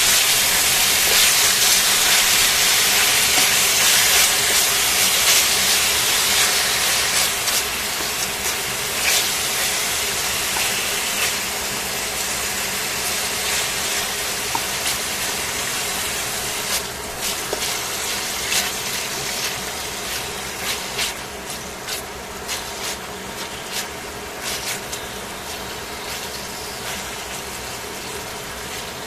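Thin slices of pork sizzling in a stainless steel frying pan, a steady hiss that slowly dies down. Sharp clicks and scrapes of tongs against the pan come now and then, more often in the second half.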